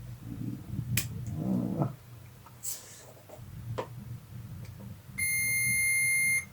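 A multimeter's continuity tester beeps one steady high tone for just over a second near the end, the sign of a closed circuit across its probes on the green and brown wires of the motorcycle's fuel-gauge light. Before it, a few light clicks of the probes and wires being handled.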